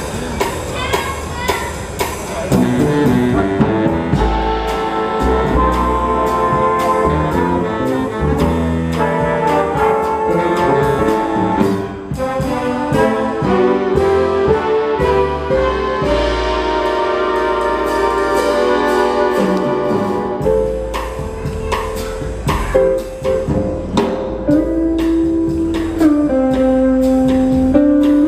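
Jazz big band playing live: the saxophone and brass sections play held chords over upright bass, piano and drums, with a steady cymbal pattern ticking throughout.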